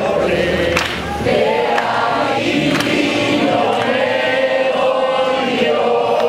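A choir of voices singing a song together, holding long notes.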